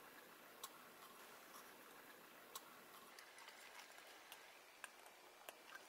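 Near silence with a handful of faint, short clicks and taps as a metal dowelling jig is handled and set against a pine board.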